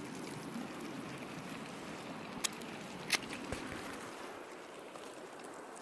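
Steady rush of a flowing river, with two sharp clicks about two and a half and three seconds in and a low thud just after.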